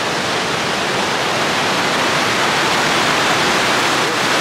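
Steady rush of river water pouring over a low dam.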